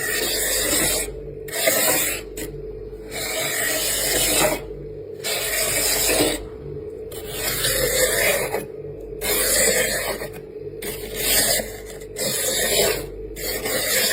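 Freezer frost scraped off in repeated rasping strokes, about nine of them, each lasting up to about a second and a half, with a steady low hum underneath.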